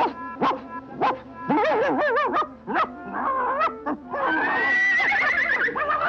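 Cartoon soundtrack: a string of short dog-like yips and yelps and bending animal-like calls over background music, then a long wavering high tone from about four seconds in.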